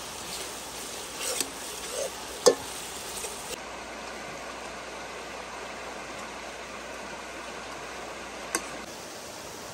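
Sliced onions sizzling in oil in a metal pot, stirred with a metal ladle that scrapes and clinks against the pot, with one sharp clink about two and a half seconds in. After about three and a half seconds the stirring stops and a steady hiss carries on.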